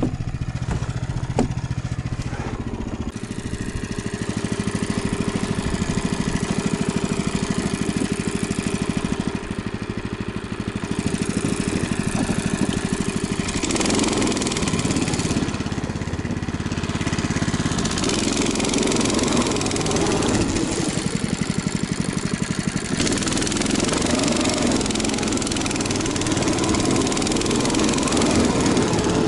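Snowmobile engine running steadily, then louder and rougher about halfway through and again later on, as it is revved or pulls away.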